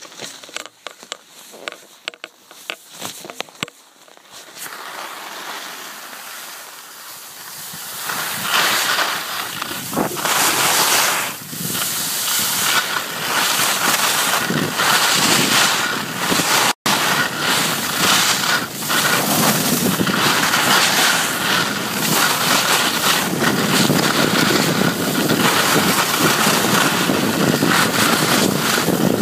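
Wind rushing over the microphone and skis scraping over snow during a downhill ski run. A few faint crunches come at first, then a loud steady rush builds from about eight seconds in as speed picks up. The sound cuts out for an instant about two-thirds of the way through.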